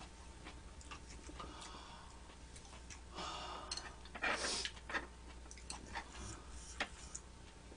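Quiet eating sounds: scattered light clicks of chopsticks against dishes, and chewing. Two brief, louder noisy sounds come about three and four seconds in.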